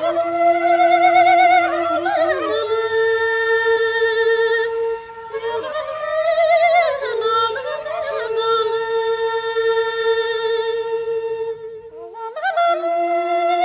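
Music: a woman's voice singing a slow melody with heavy vibrato over a long, steady held drone note. The melody breaks off briefly twice while the drone holds.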